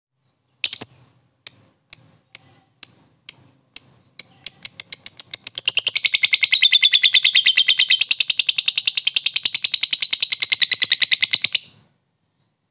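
Lovebird calling. A string of sharp, separate ticking calls about two a second ("ngetik") speeds up about four seconds in and runs into a long, rapid chattering trill ("ngekek") that stops abruptly near the end.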